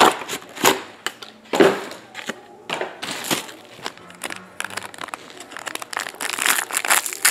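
Foil trading-card pack wrapper being torn open and crinkled by hand: a few separate sharp crackles, then a denser run of crinkling near the end.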